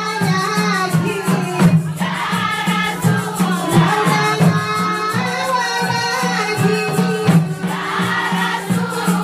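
A women's group singing together a debaa, the traditional sung devotional dance of Mayotte, with held, gliding melodic lines.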